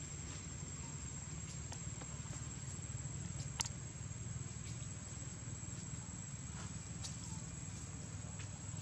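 Outdoor ambience: a steady low rumble and a thin, steady high whine, with scattered small ticks and rustles of dry leaves as monkeys move about, and one sharp click about three and a half seconds in.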